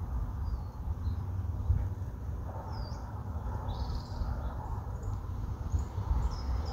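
Wind buffeting the microphone in uneven gusts, with small birds giving short high chirps several times.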